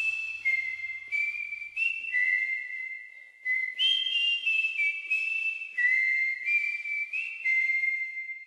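A slow whistled melody of high held notes stepping up and down, with a short pause a little after halfway, fading out at the end.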